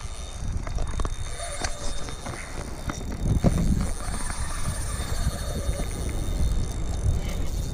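Low rumble of wind on the microphone, with a few sharp clicks and knocks from the spinning rod and reel being handled against a hooked fish; the loudest knock comes about three and a half seconds in.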